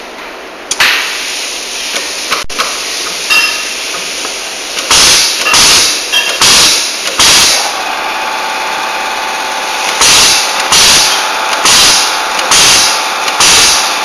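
Benchtop semi-automatic wire stripping and crimping machine running: a steady hiss starts suddenly about a second in. From about five seconds it cycles through repeated strokes, each a short burst of hiss, roughly one a second, with a pause in the middle.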